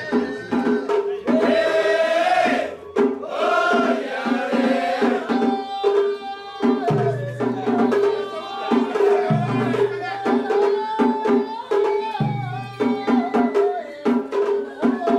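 Japanese festival music: drums beat a steady, quick rhythm under a high, wavering melody. A deep drum is struck three times in the second half, each stroke ringing on.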